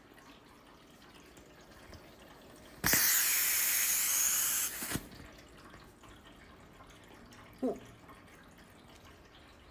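Water rushing out hard for about two seconds, starting and stopping sharply, followed by a knock.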